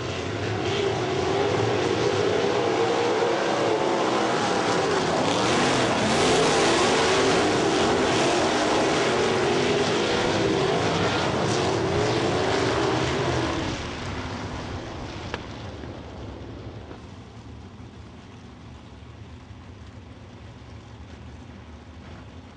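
A pack of sprint car engines running as the field passes on a dirt oval, with pitches wavering up and down as the cars go by. The sound is loudest for about thirteen seconds, then drops away to a fainter drone as the cars move off.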